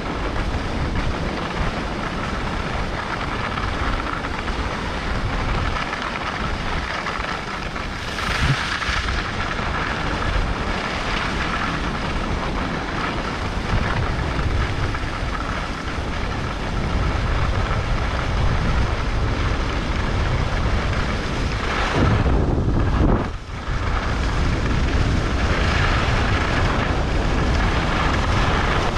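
Wind rushing over the microphone and skis sliding and scraping on the piste snow during a downhill run. The noise is steady, with a short lull about three-quarters of the way through.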